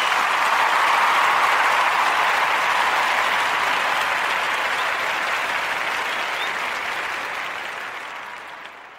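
Crowd applause, a dense steady clapping that fades out near the end.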